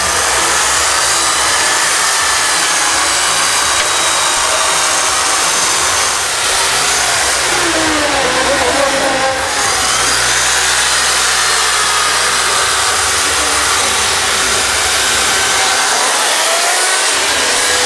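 Corded electric Husqvarna chainsaws running and cutting into blocks of ice. The motor pitch rises and falls continuously as the chains bite and ease off.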